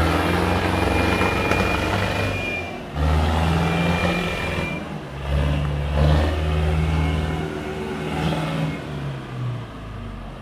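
Diesel engines of two tractors chained back to back and pulling against each other, revving hard under heavy load. The engine note dips briefly and surges back a few times, then eases off near the end.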